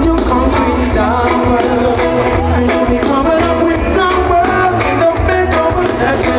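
Reggae band playing live through a large outdoor PA system: a sung lead vocal over heavy bass and a regular drum beat.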